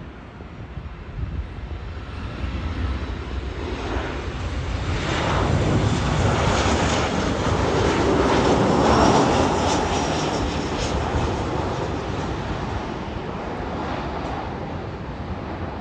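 Jet airliner passing close by, its engine noise swelling to a peak about halfway through with a faint high whine, then slowly fading.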